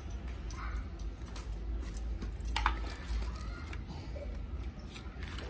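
Cardboard and plastic packaging rustling and clicking as a phone box's charger and accessories are handled, with one sharp click about two and a half seconds in, over a steady low rumble.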